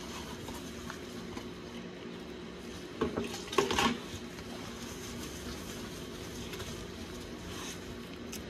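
Handling noise from a cloth rag being rubbed over an oil filter and its fittings, with a short burst of rustling and knocking about three seconds in, over a steady low hum.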